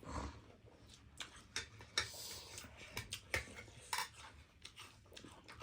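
Eating at a table: utensils clicking and scraping against a noodle bowl in scattered short clicks, with brief eating noises between them.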